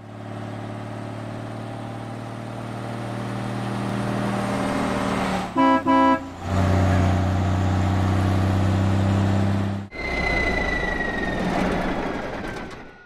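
Cartoon sound effect of a truck engine running, growing louder, with two short horn beeps about halfway through. At about ten seconds the engine sound gives way to a hiss with a slowly falling whine as the truck comes to a stop.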